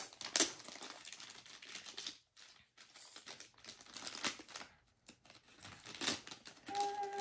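Plastic packaging crinkling and tearing as a toy piece is unwrapped, with a few sharp plastic clicks and a brief tone near the end.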